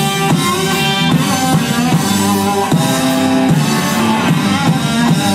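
Ska band playing live: drum kit, electric guitars and saxophone, a full band at a steady beat.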